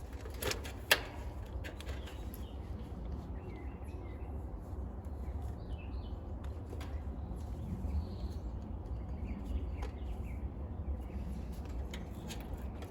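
Two sharp clicks about half a second and a second in, the second the loudest, from hands working on a dead air-conditioner condenser. They sit over a steady low outdoor rumble with faint bird chirps.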